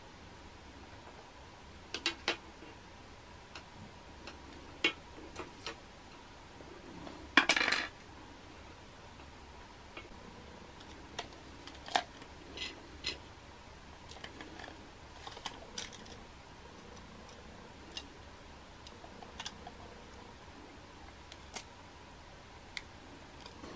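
Scattered light clicks and metallic clinks of small tools and a thin repair rod being handled on a metal tray, with the loudest clatter about seven seconds in.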